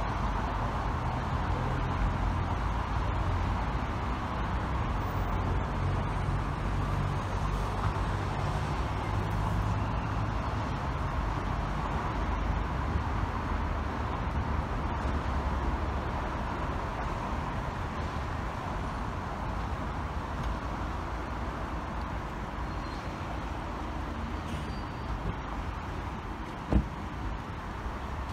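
Steady road traffic rumble with a band of low engine noise swelling and fading in the first third, and one sharp knock near the end.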